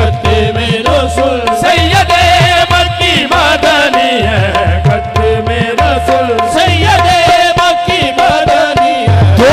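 Qawwali ensemble playing: a harmonium-like steady held note under a singer's wavering, ornamented melodic runs, with recurring hand-drum beats below.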